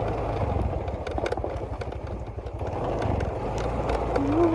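Small engine, likely the boat's motor, running steadily with a low hum.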